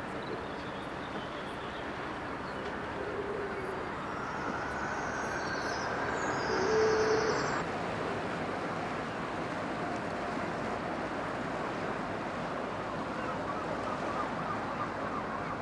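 Urban harbour ambience: a steady wash of distant city and harbour noise. A faint rising whine builds from about four seconds in and cuts off shortly before eight seconds, with a short low hoot twice along the way.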